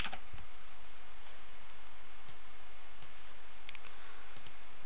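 A few faint computer mouse clicks, one near the start and a couple more after about three and a half seconds, over a steady hiss.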